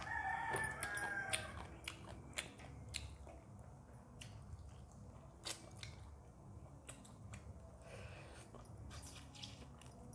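Close-miked eating sounds: wet chewing, lip smacks and small clicks while rice and chicken curry are eaten by hand. A short pitched call lasting about a second and a half sounds at the very start.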